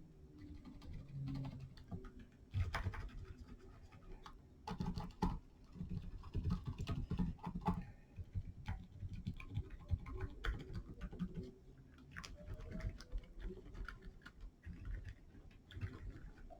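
Typing on a Gamakay K66 65% mechanical keyboard with lubed silent Alpaca linear switches and POM Jelly keycaps: muted keystrokes in quick, irregular runs, with a few louder strokes mixed in.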